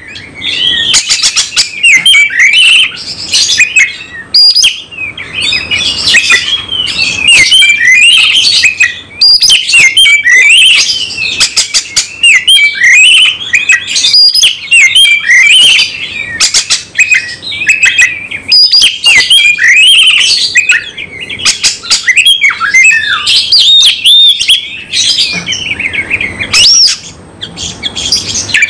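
Caged oriental magpie-robin singing non-stop in the aggressive 'fighting' manner: a loud, fast, varied song of rising and falling whistles, trills and short harsh notes, with hardly a break.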